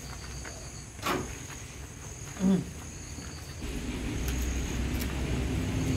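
Insects chirring in a steady high-pitched drone, with a single sharp knock about a second in and a short low sound at about two and a half seconds. From about three and a half seconds a louder rustling noise builds underneath.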